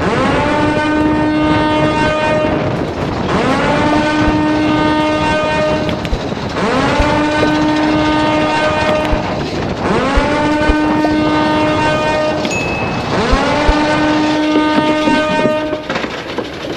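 Emergency alarm horn sounding in repeated long blasts, about one every three seconds. Each blast slides quickly up in pitch, then holds a steady, many-toned note.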